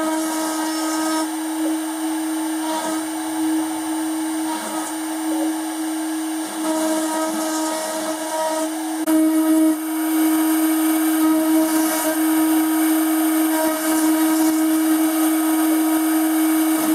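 High-speed CNC spindle running at about 19,000 rpm with a steady whine while a small engraving cutter mills into aluminium plate, the hiss of the cut swelling and easing as the tool moves.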